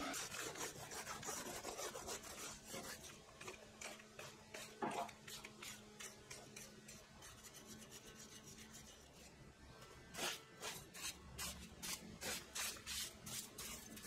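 A flat metal bar scraping dirt and loose bark off the surface of a log in repeated rasping strokes, stronger and at about three a second in the last few seconds.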